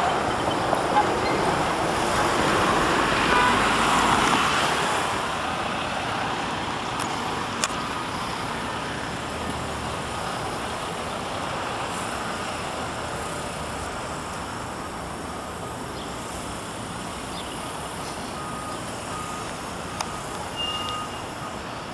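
Street traffic: a vehicle passes, loudest over the first few seconds, then a steady wash of road noise with a few short clicks.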